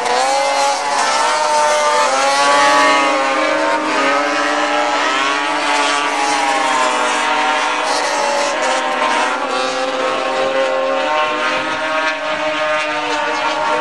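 Several racing snowmobiles' two-stroke engines running at high revs together. Their pitches rise and fall as the sleds lap the oval.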